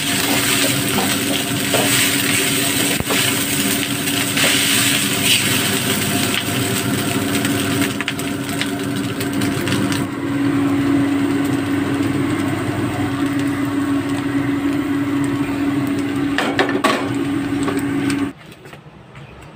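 Spatula scraping and tossing rice in a hot wok during stir-frying, a dense sizzle full of small clicks and knocks. About halfway through it gives way to the duller, steadier sizzle of beaten egg frying in a pan, with a steady low hum under both. The sound drops away sharply near the end.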